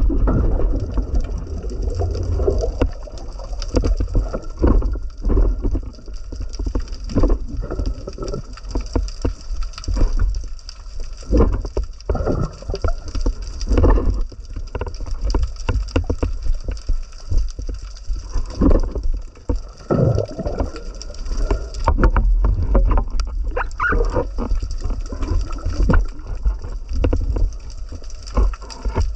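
Muffled underwater sound through an action camera's waterproof housing: a steady low rumble of water movement with a thin hiss and frequent short knocks and clicks from handling the speargun and its line.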